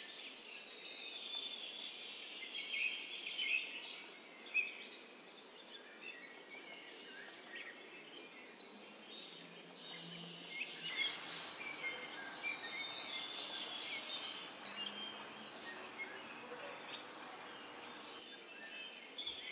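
Small birds chirping and singing, with many short high calls repeating one after another, over a steady background hiss.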